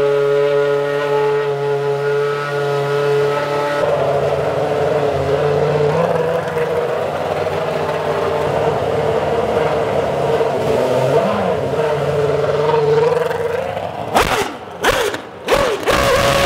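Alpine Formula 1 car's engine running: a steady, even idle at first, then a rougher, wavering note as the car pulls away. Near the end come several sharp, loud blips of revs.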